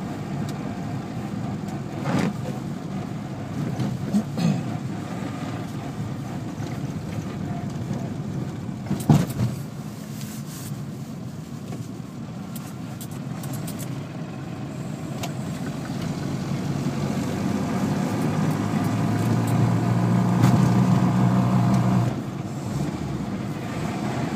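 Car engine and road noise heard from inside the cabin while driving. The engine drone grows louder through the second half, then drops suddenly near the end. A few knocks sound along the way, the loudest about a third of the way in.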